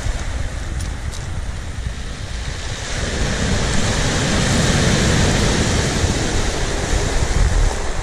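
Sea surf washing onto the shore, with wind rumbling on the microphone; the wash swells louder about three seconds in.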